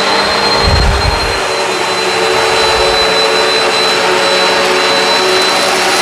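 Bissell CleanView Swivel Pet upright vacuum running steadily on carpet: a constant motor hum with a thin high whine, probably while sucking up scattered kitty litter. A brief low rumble comes about a second in.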